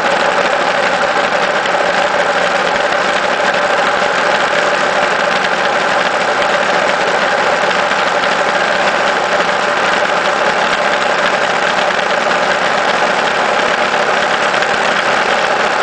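Vehicle engine running at a steady cruise, its pitch holding level, over constant road and wind noise heard from on board.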